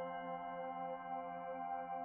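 Background ambient music of long, held, chime-like tones with a slow pulse.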